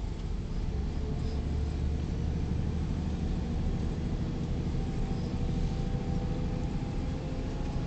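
Scania 124/470 truck's straight-six diesel droning steadily while driving, heard from inside the cab with tyre and road rumble on snow. A faint whine rises slowly in pitch over the second half.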